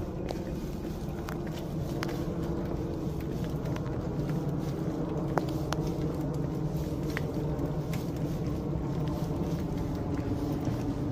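Steady low rumble of a car engine on a wet street, growing a little louder about four seconds in, with scattered light ticks and footsteps on wet pavement.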